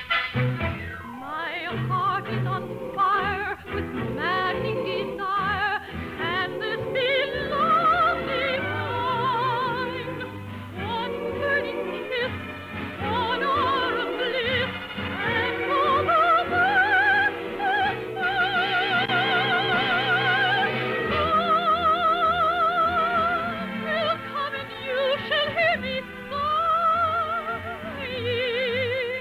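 Operetta singing with wide vibrato over orchestral accompaniment, sustained notes gliding from pitch to pitch, in a dull, narrow-band old radio recording.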